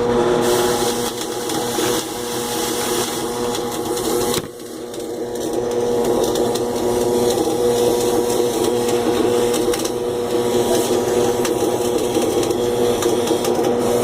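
Stick welding arc crackling and sizzling over the steady hum of the arc welder. The arc cuts out briefly about four seconds in, then is struck again and runs steadily.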